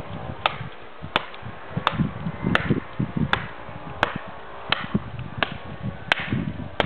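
Morakniv Bushcraft Force knife chopping into a piece of wood: about ten sharp strikes at a steady pace, roughly three every two seconds, with duller thuds between them.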